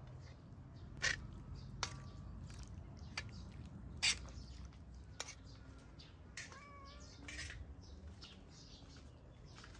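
Metal spoons clinking and scraping against an iron sadj as diced chicken is stirred: a handful of sharp clinks, the loudest about four seconds in. A short wavering animal call comes partway through.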